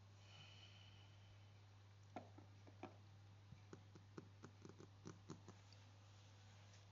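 Near silence with a steady low hum, and a run of about a dozen faint clicks and taps in the middle, like small handling noises.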